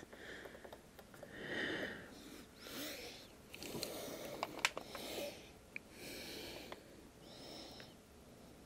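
Close, soft breathing through the nose, a swell about every second or so, some with a faint wheezy whistle, broken by a few light clicks.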